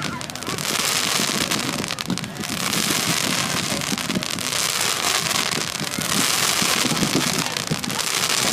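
Fireworks crackling: a dense rush of many small pops and fizzes that swells and eases in waves.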